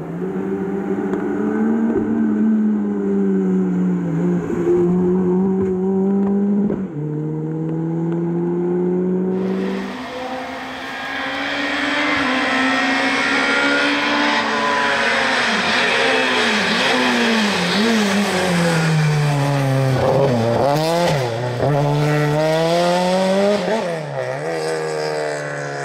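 Peugeot rally cars driven hard on a wet tarmac stage: first a blue Peugeot 206 holding its engine high under load, then a white Peugeot accelerating with quick throttle lifts and gear changes that make the engine note dip and climb again. From about ten seconds in, the hiss of tyres throwing up spray on the wet road runs under the engine.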